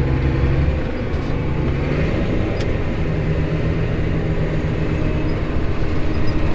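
Tractor engine running steadily under way, pulling a grain cart, a low drone with a slight shift in pitch about two seconds in.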